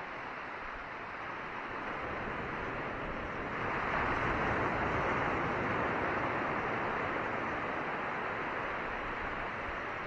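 Small waves breaking and washing in over a rocky shore: a steady rushing surf that swells about four seconds in and slowly eases off.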